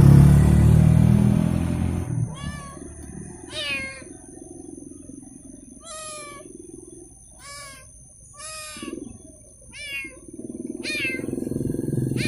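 A kitten meowing over and over, about seven short high-pitched calls. A motorcycle engine's low rumble fades out in the first two seconds and rises again near the end.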